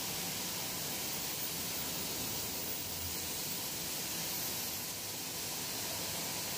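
Steady, even hiss of industrial biscuit-line machinery running: conveyors, forming rollers and oven equipment.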